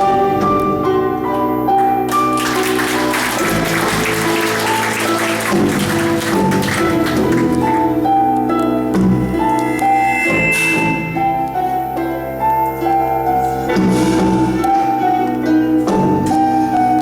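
Instrumental music: a melody of held pitched notes over a low sustained bass, with a wash of hissing, shimmering percussion from about two seconds in that dies away by about seven seconds, and brief flashes of it later.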